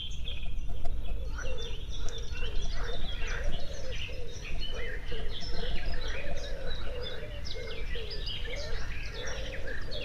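Birds singing, a dense chorus of rapid high chirps and chatter, with a lower call repeated about twice a second, over a steady low rumble.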